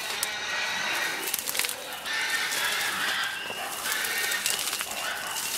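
High, drawn-out animal calls overlapping one another, with short crackles of reeds and brush through them.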